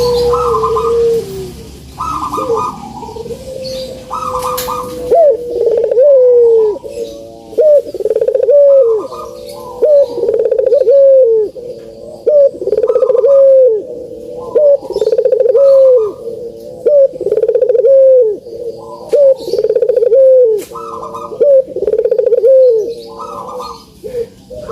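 Puter dove cooing over and over, a quick, evenly repeated coo about once a second, with a higher short call every couple of seconds. It is a recording played as a lure to set caged puter doves calling.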